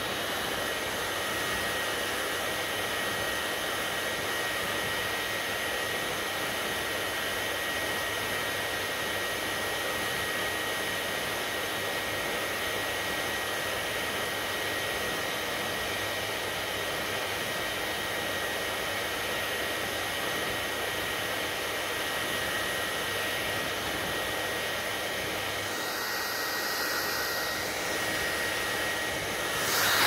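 Panasonic hair dryer blowing steadily on hair, a constant rush of air with a thin high whine. Near the end the air sound shifts as the dryer moves and the whine stops, then a knock.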